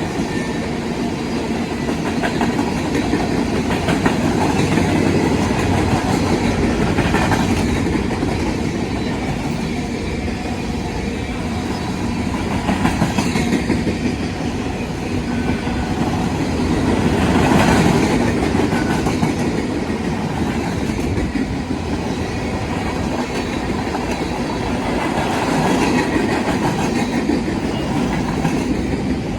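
Train cars rolling past close by: the steady rumble and rattle of steel wheels on the rails, swelling and easing a little in loudness, with no horn sounding.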